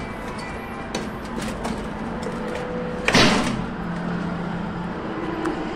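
Lift (elevator) with sliding doors: a few light clicks, then a loud sliding-door noise about three seconds in, followed by a steady low hum.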